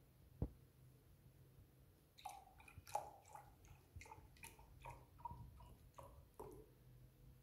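Faint squishing and squelching as a paperboard carton is squeezed and thick milk oozes from its spout into a cup, a string of short squelches a few per second. A soft knock comes near the start.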